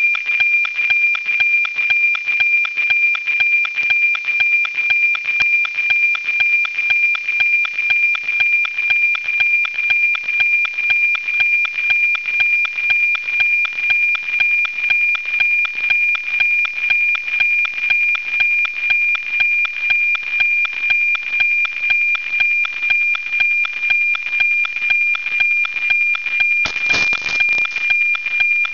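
NOAA 19 weather satellite's APT image signal received on a software-defined radio: a steady high tone pulsing in an even tick-tock of two beats a second, each beat one image line sent down from the satellite. Near the end comes a brief rush of static.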